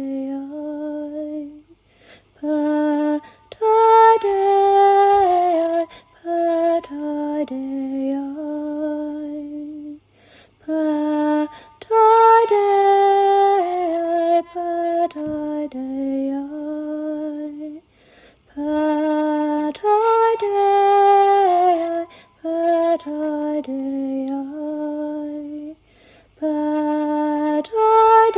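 A woman's voice singing alone, a slow chant-like melody in held notes broken by short breaths. The same phrase returns about every eight seconds.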